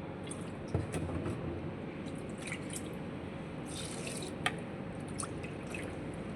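Water being added to rice in a cooking dish: dripping and trickling with scattered light clicks, a soft knock a little under a second in and a sharp click about four and a half seconds in.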